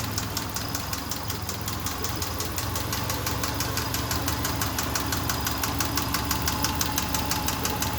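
Subaru Forester's flat-four engine idling with a rapid, even ticking knock. The owner wonders whether it is piston slap or a tensioner pulley.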